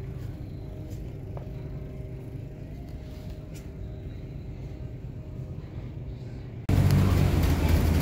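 Steady low vehicle rumble with a faint hum, then an abrupt jump near the end to much louder road and engine noise.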